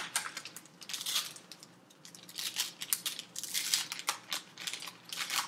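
Wax-paper wrapper of a 1985 Topps baseball card pack crinkling in a run of sharp, irregular crackles as it is peeled open by hand, with a short pause about two seconds in.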